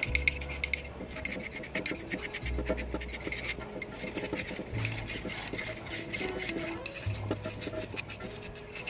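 Small steel hand file rasping in quick back-and-forth strokes over the rusted steel of an antique hammer-and-monkey-wrench multi-tool, scraping rust off the metal by hand.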